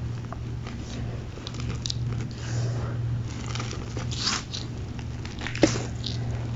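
A pressed cake of gym chalk being crushed: scattered crumbling crackles and soft crunches, with one sharp crack about five and a half seconds in. A steady low hum runs underneath.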